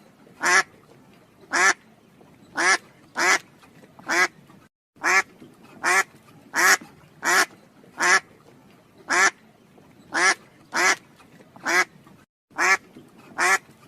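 Duck quacking: short single quacks repeated steadily, roughly one every half second to second, with two brief complete drop-outs in the run.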